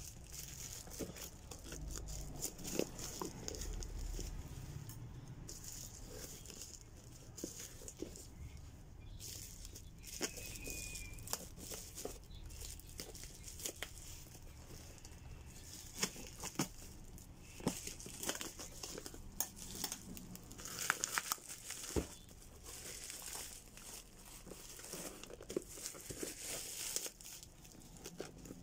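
Plastic bubble wrap being handled and crinkled as a boxed ring-light kit is unwrapped, with scattered sharp crackles and clicks, busiest in the second half.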